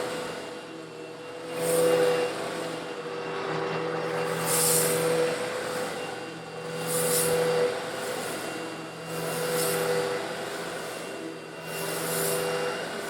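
Eureka vacuum cleaner running with a steady motor hum, sucking up small coarse stone granules that rattle through it in swells of gritty noise about every two and a half seconds.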